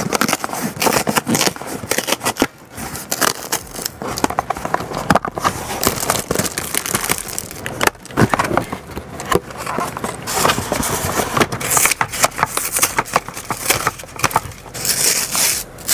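Toy box packaging being opened and handled: continuous crackling, scraping and rustling with many sharp clicks.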